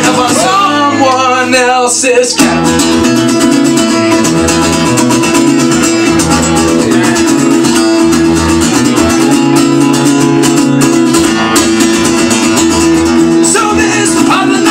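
Acoustic guitar strummed rapidly and steadily in a live solo performance, with a man singing over it in the first two seconds and again near the end.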